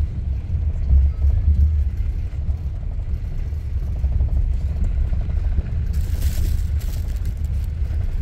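Engine and road rumble inside the cabin of a moving bus, steady and low. A brief hiss comes in about six seconds in.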